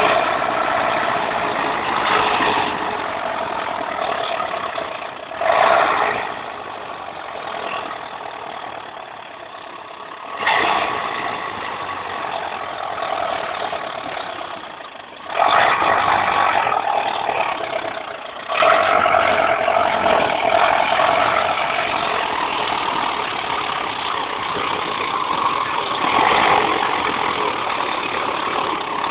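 Belarus MTZ-82 tractors' four-cylinder diesel engines running hard under heavy load. The revs surge sharply several times and ease off in between.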